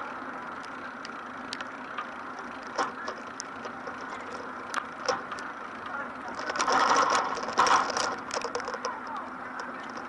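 Busy city street in the rain: a steady murmur of crowd voices with scattered clicks and taps, louder for a couple of seconds after the middle.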